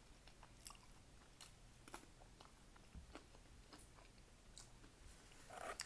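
Faint, close-up chewing of a raw jalapeño pepper: small crisp crunches and wet mouth clicks at irregular intervals.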